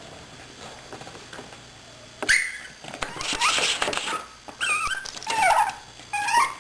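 Chihuahua puppy vocalising: after a couple of seconds of quiet, a sudden noisy yelp followed by several short, high whining squeaks that slide up and down in pitch.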